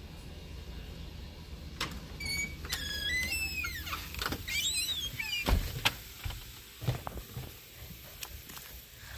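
Door hinges squeaking in several high, wavering squeals as the door is swung, a heavy thump about five and a half seconds in, then scattered footsteps on wooden steps.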